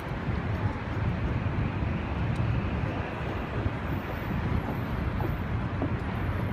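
Steady low rumble of downtown city background noise, without clear events.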